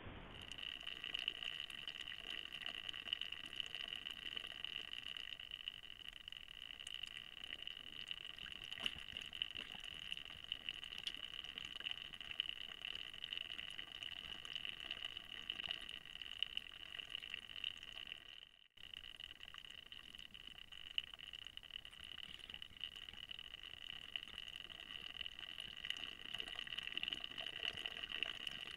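Steady high electronic whine from a trail camera's night recording, with faint scattered rustles and clicks as a black bear sniffs and paws at the ground close to the camera. The sound cuts out completely for a moment about two-thirds of the way through.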